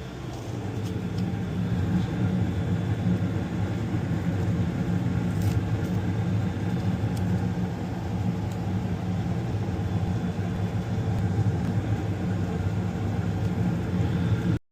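2018 Tempstar two-stage gas furnace running in low fire, its inducer and circulating blower motors humming steadily. The level rises over the first two seconds and then holds.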